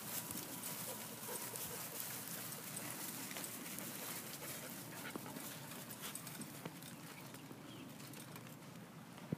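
A dog panting as it walks, with faint scattered ticks.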